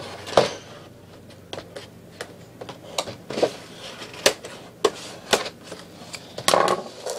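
Handling of a Tech Deck package: a string of sharp clicks and taps with short crinkling rustles of the cardboard and plastic packaging.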